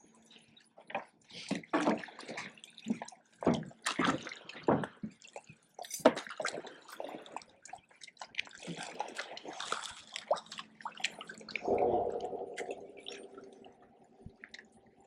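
Water lapping and splashing with small irregular drips and slaps. About twelve seconds in, a steady hum starts and holds.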